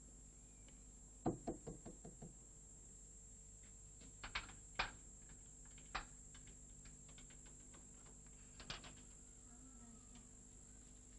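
Knocking on a wooden door: a quick run of about six knocks, each fainter than the last, about a second in, then a few single knocks later on, over a faint steady hum.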